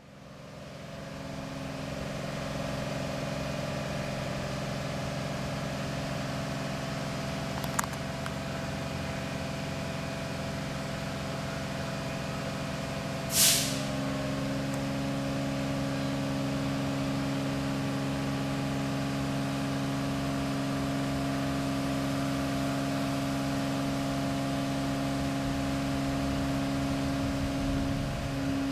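Steady mechanical drone with several held tones, with one short, sharp hiss about halfway through.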